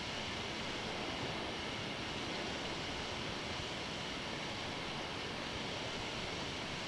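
Steady hiss with a low rumble beneath it and no distinct events: the background noise of a microphone left recording in an empty room.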